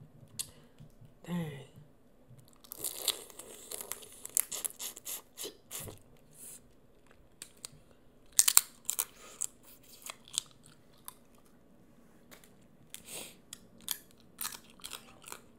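Close-miked eating of boiled crawfish: shells cracking and peeling apart, then chewing and wet mouth smacks as the tail meat is eaten. The sounds come as irregular sharp crackles and snaps, loudest in a cluster about eight and a half seconds in.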